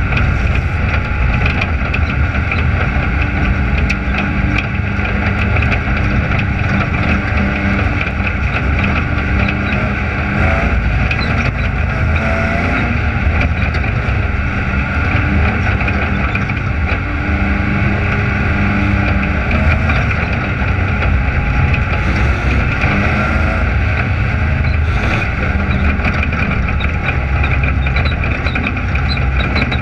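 Dirt-track race car's engine running steadily at a slow caution pace behind the pace truck, heard through the car's onboard camera, with no hard revving.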